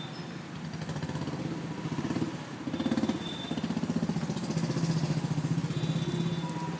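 Motorcycle engine running close by in street traffic, with a quick, even beat of exhaust pulses that grows louder from about two seconds in.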